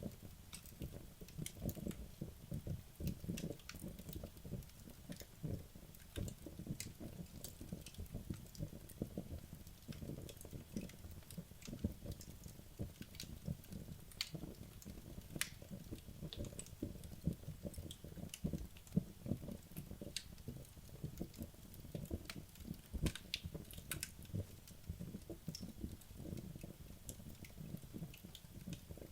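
Wood logs burning in a fireplace: a steady low flutter of flames with frequent sharp crackles and pops.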